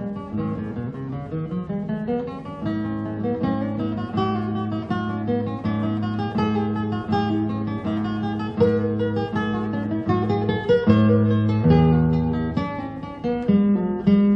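Background music: acoustic guitar, played with a run of plucked and strummed notes.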